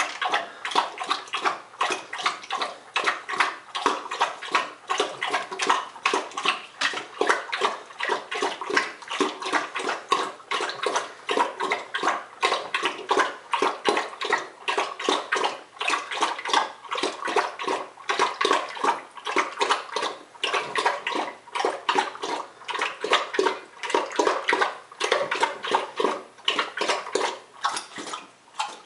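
English bulldog eating greedily from a bowl: a fast, continuous run of wet chomping, smacking and slurping.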